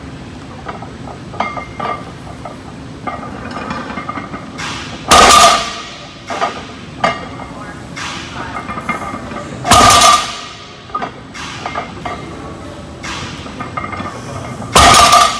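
Heavy loaded deadlift barbell, 605 lb of iron plates, set down on the gym floor three times, about five seconds apart: each a loud metallic clank with the plates ringing briefly. Smaller clinks of plates and bar come between the reps.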